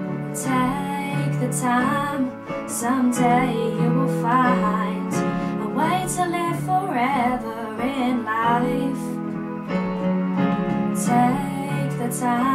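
A woman singing over sustained keyboard chords. Her voice comes in about half a second in.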